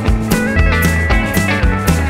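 Rock music with guitar over a steady drum beat.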